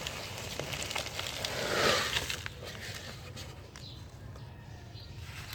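Dry brick dirt crumbling into powder, a gritty crackling that swells about two seconds in and then thins to scattered small crackles.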